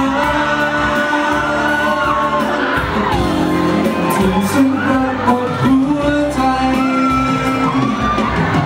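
A male singer singing live into a handheld microphone over a pop backing track, amplified through a large hall's sound system, with shouts and whoops from the crowd.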